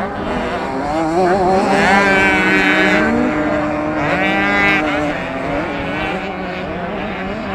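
Two-stroke 65cc motocross bikes revving on the track, several engines at once, each rising sharply in pitch as it is accelerated, most clearly about two seconds in and again about four seconds in.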